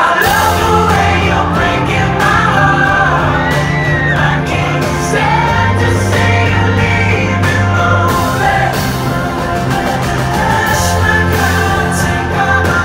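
Live indie-pop band playing: drums, bass and synth under a male lead vocal singing.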